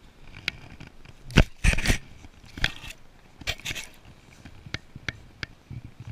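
Sled dogs (huskies and malamutes) nosing and rubbing against the camera, their muzzles and fur knocking and brushing on it: a run of sharp knocks and crackling rustles, loudest in a cluster a second or two in, then smaller ticks.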